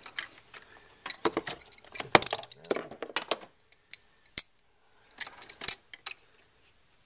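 Irregular metallic clinks and taps from a wrench working a VW Jetta's backup light switch into its threaded hole. The clinks come in a cluster from about a second in, with one sharp clink in the middle and another short cluster near the end.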